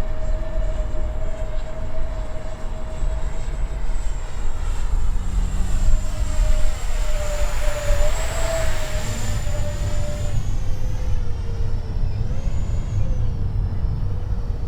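Four small electric ducted fans on an RC flying wing whining steadily as it flies past, loudest about halfway through, with the pitch wavering and dropping slightly as it passes and then fading. Low wind rumble on the microphone underneath.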